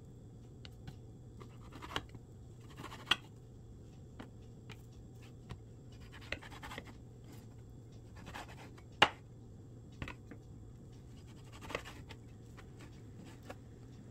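Santoku knife cutting raw beef into cubes: short, irregular scrapes and knocks of the blade on a plastic cutting board, the sharpest knock about nine seconds in.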